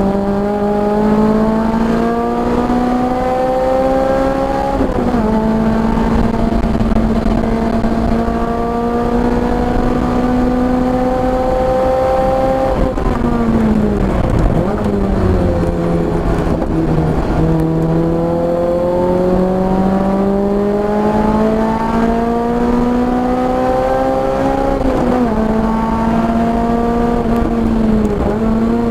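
Car engine driven hard on a race track: the revs climb under full throttle, drop sharply at an upshift about five seconds in, and climb again. About halfway through they fall away under braking with quick downshift blips, then climb once more to another shift near the end.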